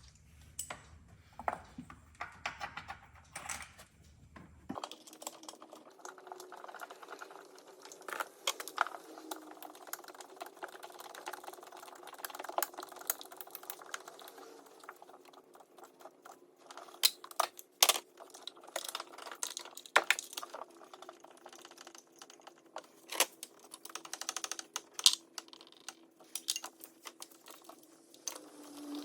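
Irregular sharp clicks and taps of hand tools working in an engine bay during spark plug replacement. A steady low hum comes in about five seconds in.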